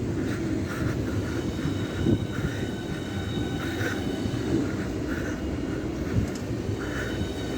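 A train running through the station: a steady low rumble with a faint, thin high whine over it.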